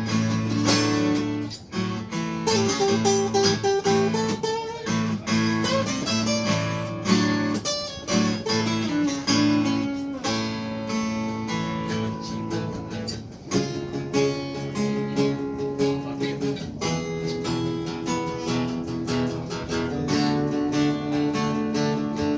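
Acoustic guitar playing an instrumental break in a song: strummed chords with a picked melody line over them, notes and chords changing steadily with no voice.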